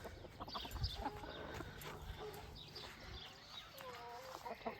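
A small flock of chickens clucking, Lohmann Brown hens with a silkie rooster among them. There are short scattered clucks, and one longer drawn-out call about four seconds in.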